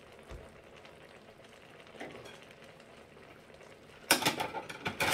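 A tabletop pan of braised aged kimchi and pork simmering faintly with a soft sizzle. A little after four seconds in, a short burst of sharp knocks and clatter close to the microphone drowns it out.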